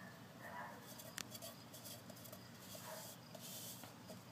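Faint rubbing and rustling of hands smoothing freshly glued fabric onto a tin bucket, with a small click about a second in.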